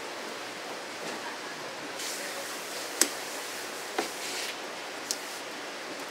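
Kitchen knife knocking on a cutting board while a large yellowtail amberjack is cut up. There are three sharp knocks about a second apart, the loudest about three seconds in, and a brief hissing slice just before and around them. All of it sits over a steady background hiss.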